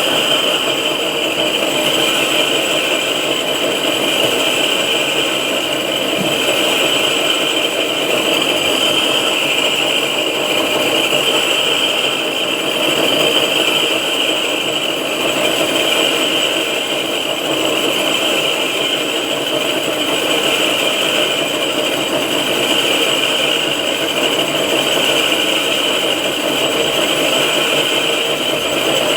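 6R12 vertical knee-type milling machine running steadily, its cutter milling the deck face of a cylinder head, with a steady high-pitched cutting whine over the machine's rattle.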